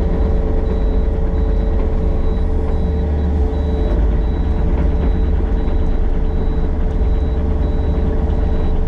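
Yanmar mini excavator's diesel engine running steadily at working speed while it grades dirt. A faint high-pitched beep repeats at an even rate over it.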